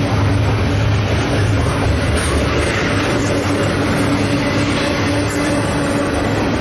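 Double-stack container freight cars rolling past: a steady, loud rumble of steel wheels on the rails, with a low hum underneath.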